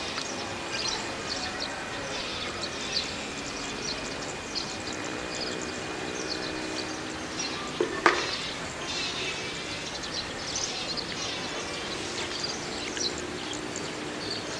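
Pond-side ambience: many short, high bird chirps throughout over a low engine hum that swells in the middle, with a thin steady whistle that stops about halfway. A single sharp knock a little past halfway is the loudest sound.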